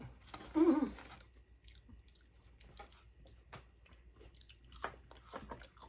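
Faint chewing of food, with scattered soft mouth clicks and small snaps. A short voiced sound falls just after the start.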